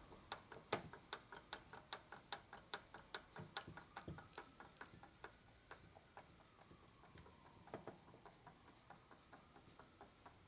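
Quiet, rapid light metallic clicking, about three to four clicks a second, from the parts of a Harley WLA transmission being worked by hand on the bench. The clicks thin out and fade after about six seconds.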